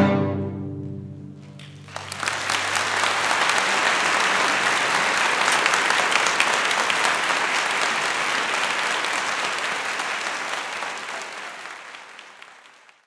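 A string orchestra's last chord dies away, then about two seconds in an audience breaks into applause, the clapping fading out near the end.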